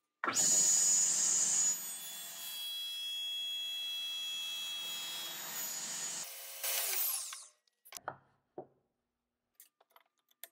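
Table saw cutting a tenon cheek through the end of a wooden board held upright in a sliding tenon jig, with the blade's high whine over the sawing noise, loudest in the first second and a half. About six seconds in the cut ends, a brief whine falls in pitch and stops, and a few light knocks follow as the jig is handled.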